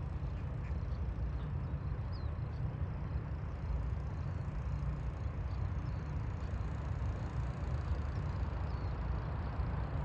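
Wind buffeting the microphone in an uneven low rumble, with a few faint high chirps now and then.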